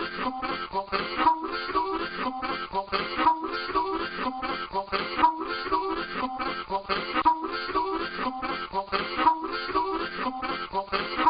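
Music with a steady, repeating rhythm.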